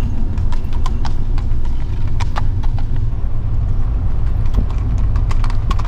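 Hooves of a herd of horses clip-clopping up a road, many irregular hoofbeats overlapping, over a steady low rumble.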